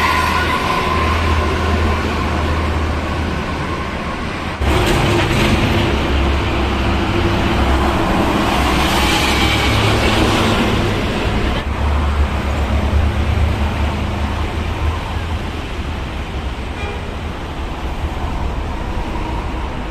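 Heavy toll-road traffic passing close by: buses, trucks and cars going past in a continuous rush. A steady high tone dies away in the first few seconds, the traffic jumps suddenly louder about four and a half seconds in, and another vehicle goes past loudly around nine to eleven seconds.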